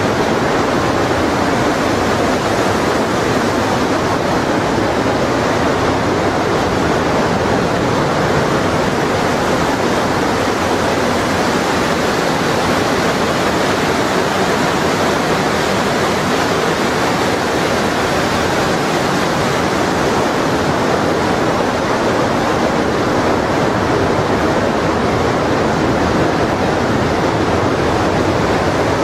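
Glacial meltwater torrent of the Lütschine river rushing as white water over boulders through the gorge: a loud, steady rush.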